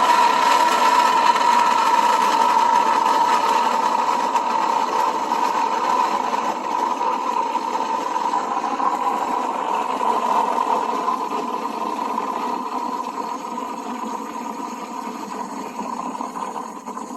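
Steam wand of a De'Longhi La Specialista Arte espresso machine frothing a jug of milk: a steady hiss that slowly gets quieter and stops near the end.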